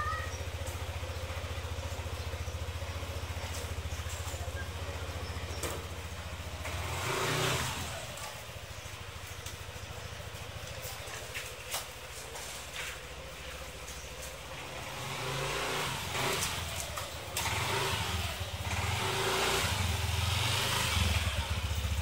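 Yamaha NMAX scooter's single-cylinder engine running at a steady idle, with a short swell about seven seconds in and several uneven revs through the last third.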